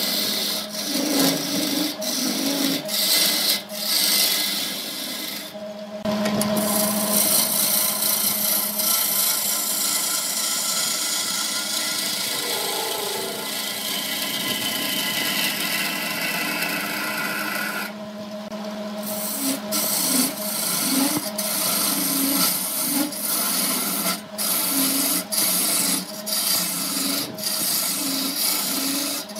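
Wood lathe running with a steady hum while a hand-held turning chisel cuts into the spinning wood blank, throwing off shavings. The cutting comes in short scraping passes about once a second, with one long unbroken cut in the middle.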